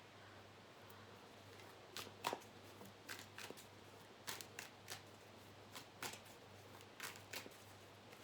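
Tarot cards being shuffled by hand: irregular soft snaps and flicks of the cards, starting about two seconds in, over a faint steady low hum.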